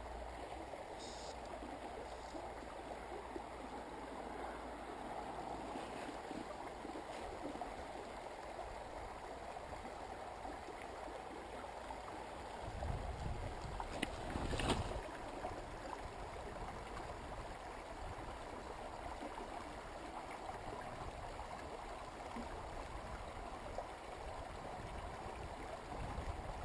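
Steady rush of flowing stream water, with a few low bumps and a sharp knock about halfway through.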